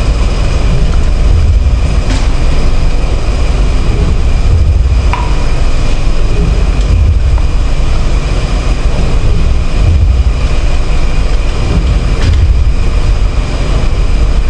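Fog machine running and pushing fog out through a Fuming Rotter animated fog prop: a loud, steady, low rushing noise with a faint high whine held above it.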